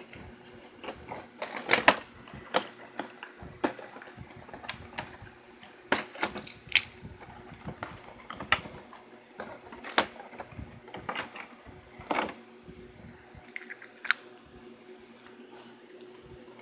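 Plastic Trackmaster toy train cars being handled and hooked together: irregular clicks and knocks of plastic on plastic, the loudest about two seconds in, over a faint steady hum.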